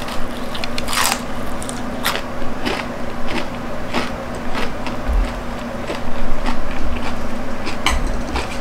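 Biting into a crispy fried chicken drumstick, then chewing the crunchy batter: a loud crunch about a second in, followed by a series of smaller crunches.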